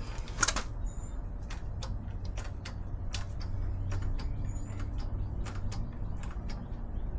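Scattered light clicks and knocks of metal parts and tools being handled during an off-road skid plate fitting, the sharpest about half a second in, over a steady low hum.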